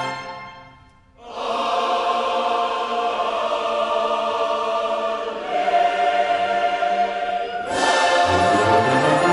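One piece of music fades out, then choral music comes in: a choir singing long held chords with orchestra, which swells louder near the end as the full orchestra with brass joins.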